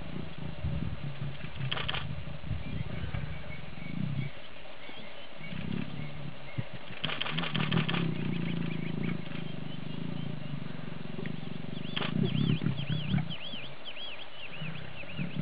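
Lions growling with low rumbles throughout, broken by a couple of harsher snarls, one about two seconds in and a longer one around seven to eight seconds. A bird chirps repeatedly near the end.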